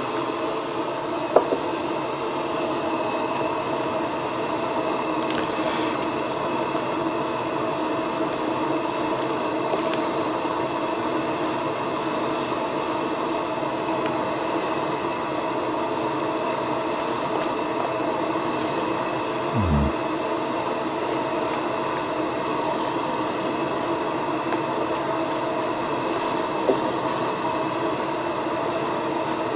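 A fork mixing soft biscuit dough in a plastic bowl, with a few light clicks, over a steady, even hiss and hum. A single low thump comes about twenty seconds in.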